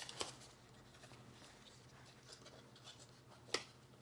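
Faint handling of two 9-volt batteries being fitted into a 3D-printed plastic battery box: light scratches and ticks, a small knock just after the start and one sharp click about three and a half seconds in.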